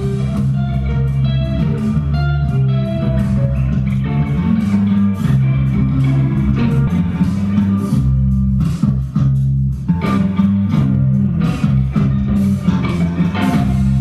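Instrumental rock music: an electric guitar plays over a deep, sustained electric bass line.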